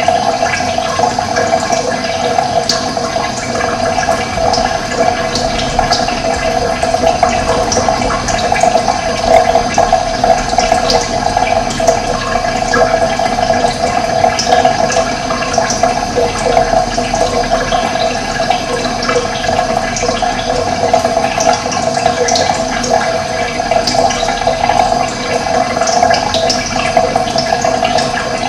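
Steady rush of running water, with short high chirps of small birds here and there.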